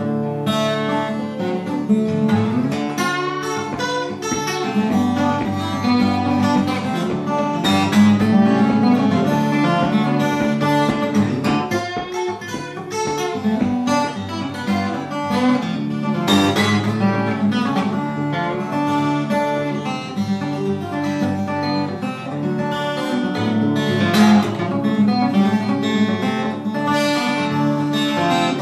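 Twelve-string acoustic guitar played solo, picked notes ringing over steady bass notes.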